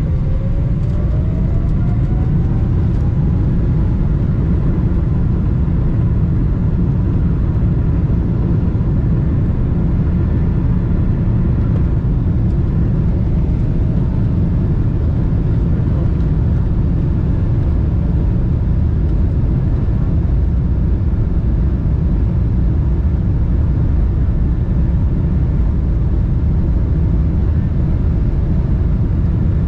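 Boeing 777-300ER's GE90 engines spooling up to takeoff thrust, heard from inside the cabin: a thin whine rises in pitch over the first few seconds above a loud, steady rumble of the takeoff roll.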